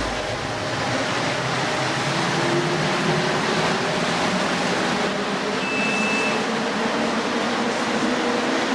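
Mexico City Metro Line 3 rubber-tyred train running between stations, heard inside the car as a steady rumble and hiss, with a brief high tone about six seconds in.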